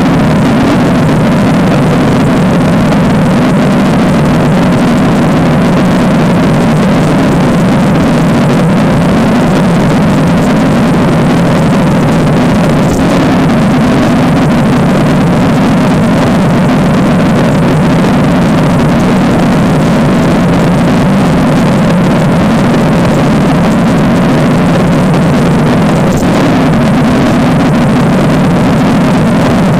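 A loud, steady low drone with a hiss over it, made as a creepy sound effect. Two faint ticks stand out, about 13 and 26 seconds in.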